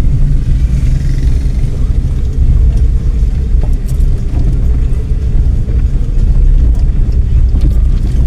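A car driving along a road: steady, loud low rumble of the engine and tyres.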